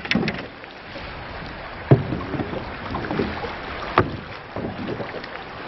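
Water sloshing around a small boat, with wind on the microphone and two sharp knocks about two and four seconds in.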